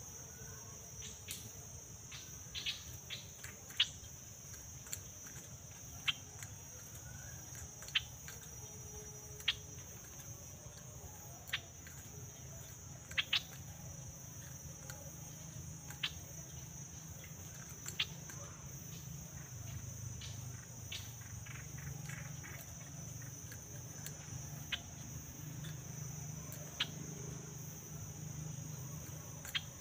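Insects droning steadily at a high pitch, with short sharp ticks every second or two and a low hum underneath.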